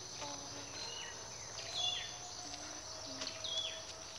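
Humid forest ambience: a steady high-pitched insect drone, with a bird giving sharp downward-slurred whistled calls, the loudest about two seconds in and again near three and a half seconds.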